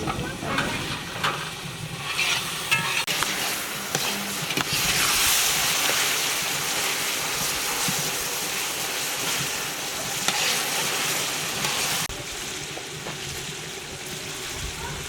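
Food frying in a hot pan: a loud, steady sizzle, with knocks and scrapes of stirring in the first few seconds. The sizzle drops off sharply about twelve seconds in.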